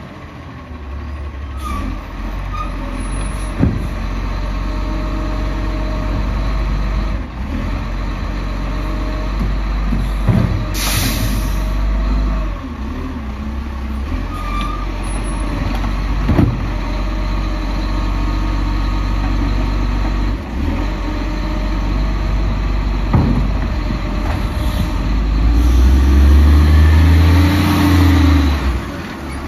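Iveco side-loader garbage truck's diesel engine running as it drives slowly up and turns, with a short air-brake hiss about a third of the way in. The engine grows loudest near the end as the truck passes close.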